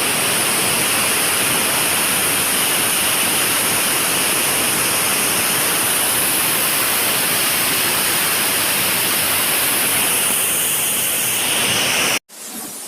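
Waterfall rushing, a loud steady roar of falling water that cuts off abruptly near the end.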